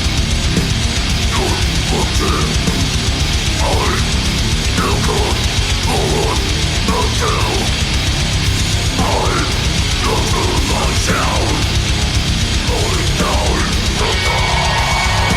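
Heavy metal song playing loud and steady, with a dense, pounding drum kit under distorted guitars.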